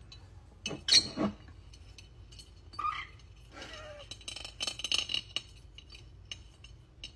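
Glass mason jar clinking and scraping on a hard countertop as it is handled and tipped over, with a small parrot shuffling inside; two sharp knocks about a second in, then a spell of light clicking and scraping.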